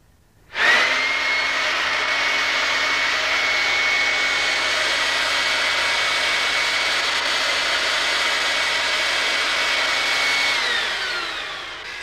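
Vacuum cleaner's brushed electric motor and enclosed fan starting up suddenly about half a second in, then running at a steady high whine over a rush of air. Near the end the whine falls in pitch as the motor winds down.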